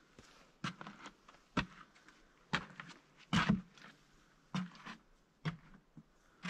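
A hiker's footsteps on a snowy trail, short, uneven steps about one a second.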